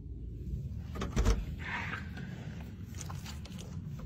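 An interior door being opened: a couple of sharp knocks about a second in, then a short rustle, over a steady low rumble of phone handling.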